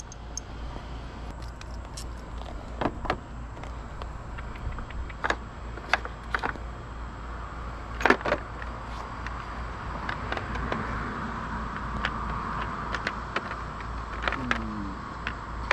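Metal hand tools and sockets clinking and tapping while bolts are worked loose in the engine bay: scattered sharp clicks over a steady low hum.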